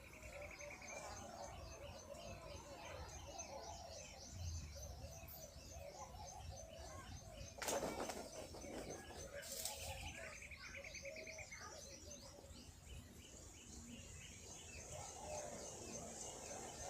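Many birds chirping and twittering together, with lower wavering calls beneath. A sharp knock about eight seconds in, and a single falling call a couple of seconds later.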